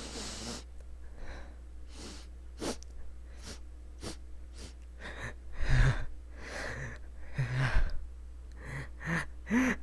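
A dog snuffling and snorting in a quick run of short sharp blasts, building to louder sneezes in the second half, the loudest about six and eight seconds in and another just before the end. A low steady hum runs underneath.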